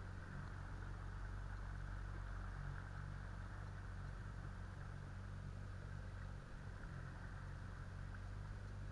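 Small boat motor running at a steady speed, a low, even hum.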